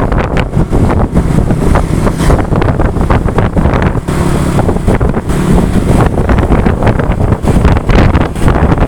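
Heavy wind buffeting the microphone over a steady rumble of road and engine noise, recorded from a moving vehicle.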